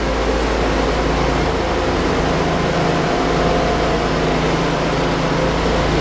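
Steady running machinery as a tipper trailer unloads barley into a grain auger: a truck engine and the auger running together. The engine note shifts slightly about two seconds in.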